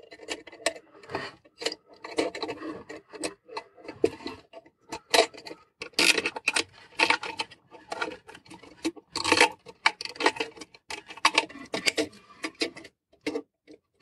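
Close-up handling noise as cable ties and a small camera circuit board are fitted to a plastic mount: many irregular clicks, ticks and rubbing scrapes.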